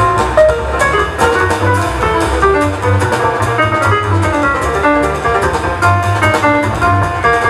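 Live jazz quartet playing: a run of quick, short notes over a walking double-bass line and light drum-kit cymbal strokes.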